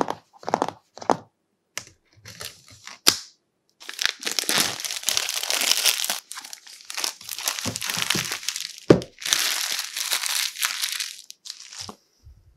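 Clear plastic shrink-wrap being scratched at, torn and crinkled off a cardboard action-figure box. A few short scratches open it, then long stretches of crinkling follow, with a single sharp knock against the box about nine seconds in.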